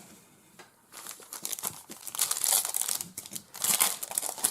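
Trading-card pack wrapper crinkling and tearing as it is opened, starting about a second in.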